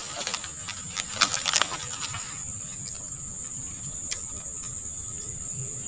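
Insects droning steadily at a high pitch, with a few faint clicks about a second in.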